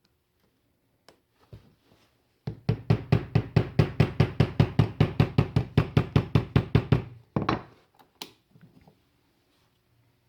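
Hammer tapping a small steel punch, made from an old Allen wrench, to drive the retaining pin out of a GM switchblade key fob set on a wooden block. A fast, even run of light taps, about eight a second, lasts nearly five seconds, followed by two separate harder blows.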